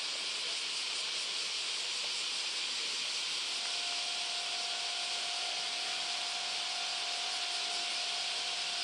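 A steady, even hiss of outdoor ambience, with a faint steady tone joining in about three and a half seconds in.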